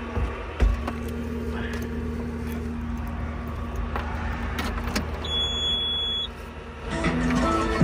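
Diesel engine of a compact construction machine idling steadily just after start-up, with a few light clicks and knocks. It drops away briefly near the end, and stepped tones of background music come in.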